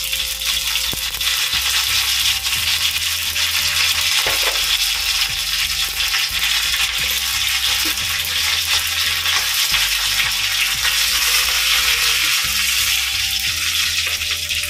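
Spices and curry leaves sizzling steadily in hot ghee in a frying pan, with scattered small pops: a tempering (vaghar) of mustard seeds, cumin, dried red chillies and bay leaves.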